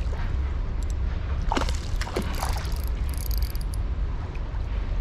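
A hooked smallmouth bass splashing at the surface of the creek as it fights the line, with a few splashes about one and a half to two and a half seconds in, over a steady low rumble.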